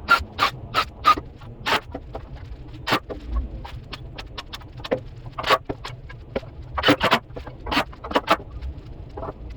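Irregular sharp knocks and clacks of woodworking handwork, wood and tools striking one another, many strikes unevenly spaced, over a low steady hum.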